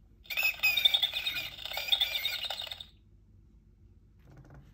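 The World of Eric Carle Hear Bear Roar sound book's small speaker plays its recorded bat sound: high, wavering squeaks and chirps lasting about two and a half seconds.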